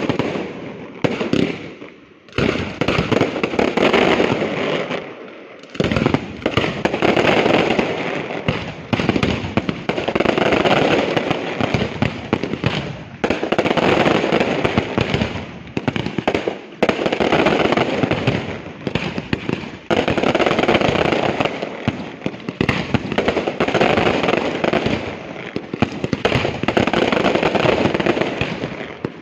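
Aerial fireworks display: rapid volleys of shells bursting in dense bangs and crackle, swelling into a loud wave every few seconds.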